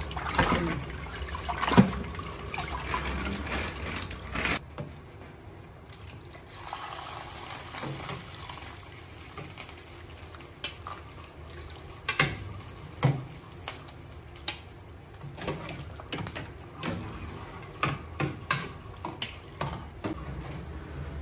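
Hands swishing ice cubes through a basin of ice water, splashing, for the first few seconds; this is the ice bath that keeps blanched vegetables crisp. After that, a metal ladle and colander knock and clink against a steel pot as the blanched vegetables are scooped out of the hot water.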